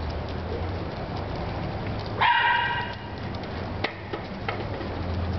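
A dog gives one high, drawn-out bark about two seconds in, held at a steady pitch for under a second, from a group of dogs at play. A few faint ticks and a steady low hum run underneath.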